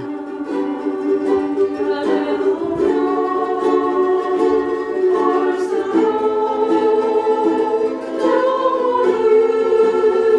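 A group of women singing a song together in slow, held notes, accompanied by several strummed ukuleles.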